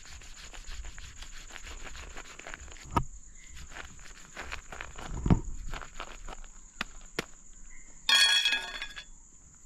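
Machete cutting into a jackfruit on a rock: crunchy slicing strokes through the spiny rind and flesh, a sharp knock about three seconds in, and a heavy thud a little after five seconds, the loudest sound. A steady high drone of insects runs beneath, and a brief harsh high-pitched sound of under a second comes about eight seconds in.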